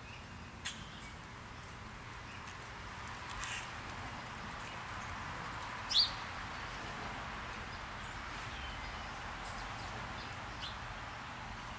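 Scattered short bird chirps over a steady background hiss, the loudest a single sharp chirp about six seconds in.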